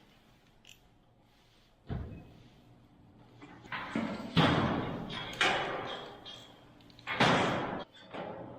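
A run of heavy slams and bangs, about five of them, starting about two seconds in, each ringing briefly before dying away.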